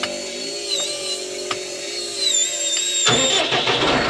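Case IH Maxxum 145 tractor's six-cylinder diesel engine being started by remote: the starter cranks, then the engine catches about three seconds in and runs.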